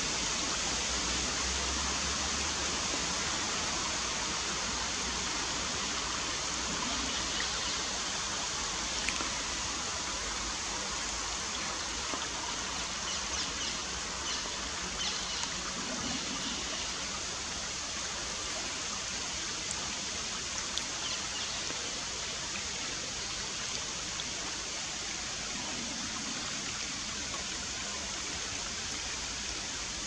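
Shallow river running steadily over a stony bed, a constant rush of water, with a few faint light ticks midway.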